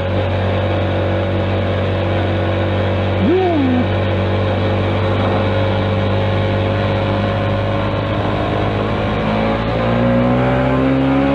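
Motorcycle engine running steadily at cruising speed over a constant rushing noise. A short rising-and-falling whine comes about three seconds in, and near the end the engine note climbs gradually as the bike accelerates.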